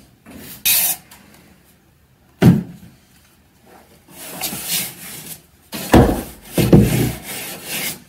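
Long cleaning pole rubbing and scraping against wooden ceiling beams in several rough strokes, with a sharp knock about two and a half seconds in.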